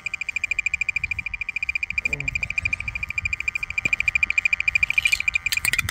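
Variotec 460 tracer-gas detector beeping rapidly and steadily, about ten high beeps a second: its alarm for a strong gas reading with the probe over the leak. A few sharp clicks near the end.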